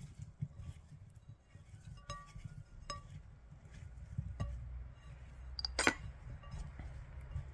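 Hands tossing raw potato wedges in a ceramic bowl: soft knocking and rustling of the wedges, with a few light clinks against the bowl and one sharp, ringing clink about six seconds in.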